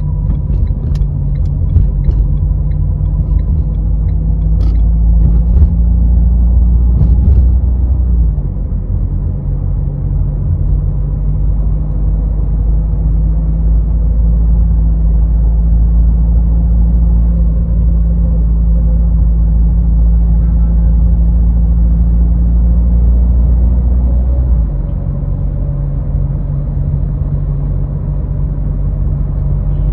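Renault car driving in town: steady low engine and road drone. The engine note shifts about eight seconds in and drops near the end. A few light knocks come in the first few seconds.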